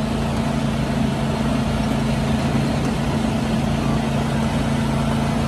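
Riding lawn mower engine running at a steady pitch while the mower is driven along.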